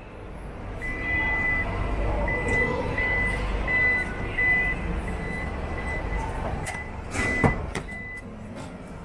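An electronic beeper sounding one steady high tone in a string of short beeps of uneven length, over a low rumble. A sharp knock comes about seven seconds in.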